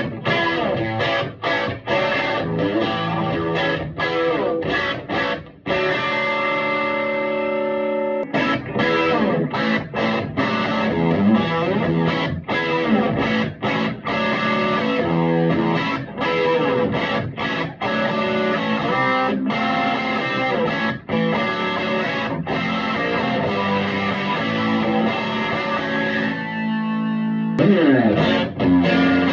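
Electric guitar played through a Vintage Sound Amp with a light overdrive: picked chords and single-note lines, with a chord held and ringing out about six seconds in.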